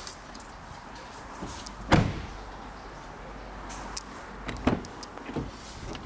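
An Audi A4's car door shut with a solid thud about two seconds in, followed near the end by a couple of sharper clicks of a door latch and handle as another door is opened.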